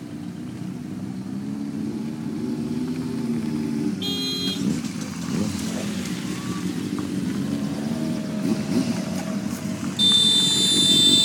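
Several motorcycle engines running as the bikes ride off slowly along a gravel driveway, engine pitch wavering and rising as they pull away. A horn sounds briefly about four seconds in, and a loud horn blast starts near the end as a motorcycle passes close by.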